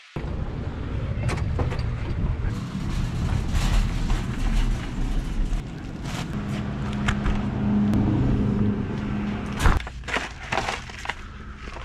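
Wire shopping cart rolling over a store floor, a steady low rattling rumble with a hum joining partway through. It stops about ten seconds in, leaving light clicks and knocks of items being handled.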